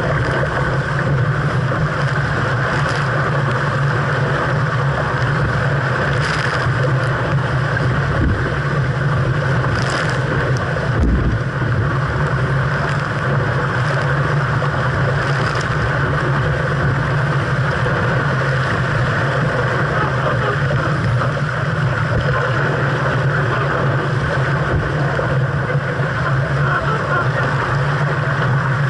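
Steady rush of strong wind on the microphone and water rushing along a 470 sailing dinghy's hull, with a few brief splashes in the first half.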